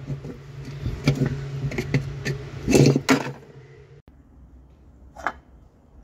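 Metal tool knocking and scraping against a bolt on a washing machine tub's metal back plate: several sharp knocks over a steady low hum, the loudest about three seconds in. After a cut about four seconds in it goes much quieter, with one more knock.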